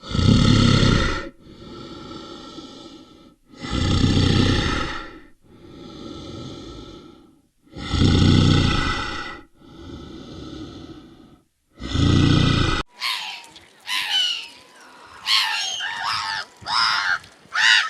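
A large animal calling loudly four times, each call about a second long, with a quieter, longer drawn-out sound between calls. After an abrupt cut near the end, birds chirp and call in quick, sliding notes.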